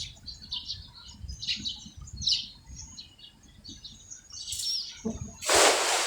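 Many small birds chirping in quick, short high calls. Near the end a loud rushing noise lasts about half a second.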